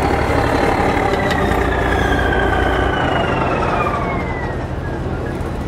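Saurer Schützenpanzer tracked armoured personnel carrier driving past close by, its diesel engine running with a high whine that slides steadily down in pitch over several seconds, growing a little quieter near the end as it moves on.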